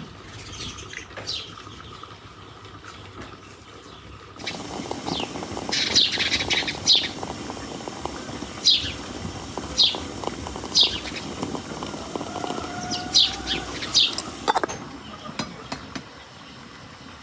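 Small birds chirping, with short, sharp falling calls repeating about once a second through the middle. From about four seconds in until near the end, a steady splashing hiss of water running from a samovar's tap into a glass teapot, which stops suddenly.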